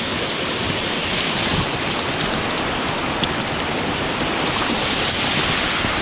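Mountain stream flowing over rocks close by: a steady, even rush of water.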